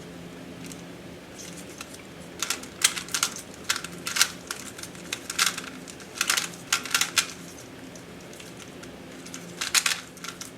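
GAN 356i smart 3x3 speedcube being turned fast during a solve: bursts of rapid plastic clicking and clacking from the layers, with short pauses between the bursts.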